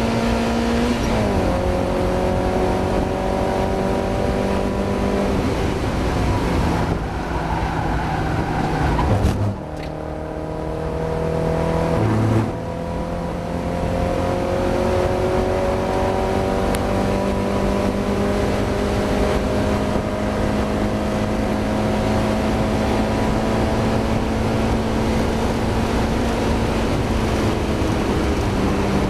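Mazda MX-5 race car's four-cylinder engine running hard under load, its pitch climbing slowly through long pulls. There are short drops in revs and level about a second in, and again around ten and twelve seconds in, before it picks up again.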